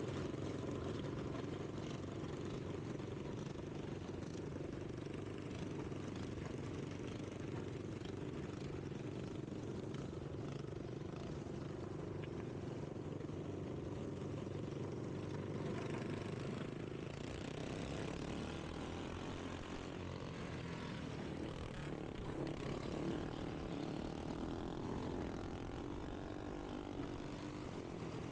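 Racing lawnmower engine running at a steady speed, with no sharp revving.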